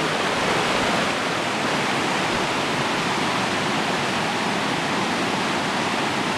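Loud, steady rush of a waterfall and fast-flowing river water.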